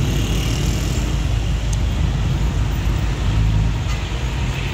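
Busy street traffic noise, steady and fairly loud, mixed with the low engine rumble of a Pakistan Railways GMCU-15 diesel locomotive rolling slowly toward the road crossing. No horn sounds.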